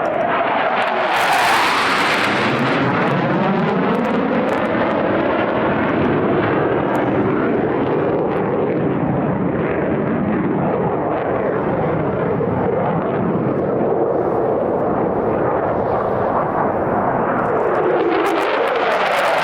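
F-15E Strike Eagle jets flying low past with a loud, continuous jet roar. The tone sweeps up and down as they pass, and a harsher, brighter surge comes about a second in and again near the end.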